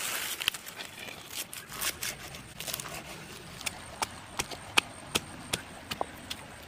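Rustling and handling noise, then from about three and a half seconds in a steady run of sharp knocks, about three a second, as of food being pounded or chopped.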